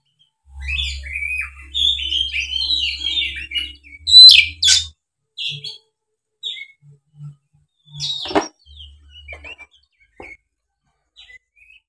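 Oriental magpie-robin singing a fast, varied chattering warble in its aggressive fighting-mode song, with a loud sharp call about four seconds in and then scattered short notes. A single sharp knock about eight seconds in.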